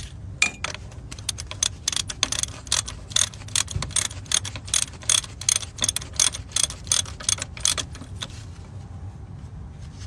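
Socket ratchet clicking rapidly in short strokes while tightening a bolt on a Cat 3406E's hand fuel priming pump, dying away about eight seconds in.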